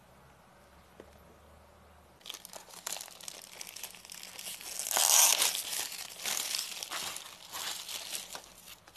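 Clear plastic shrink wrap being torn open and peeled off a phone's retail box, crinkling and crackling. Fairly quiet for about the first two seconds, then dense, irregular crinkling that is loudest about five seconds in.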